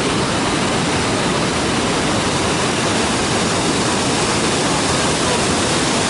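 Dudhsagar Falls, a tall multi-tiered waterfall, with water pouring down the rock face in a steady, even rush.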